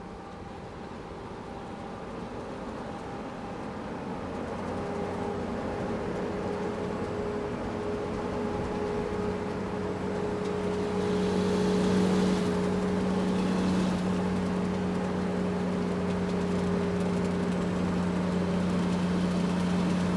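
Excavator's diesel engine running steadily under load, growing gradually louder, with a brief hiss partway through.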